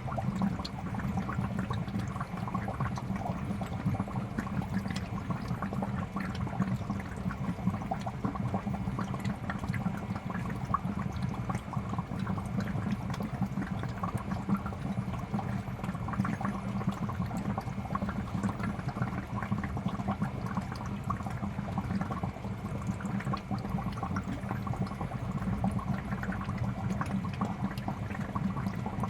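Aquarium air bubbler: a steady stream of bubbles rising and bursting in a fish tank, a dense patter of small pops over a constant low hum.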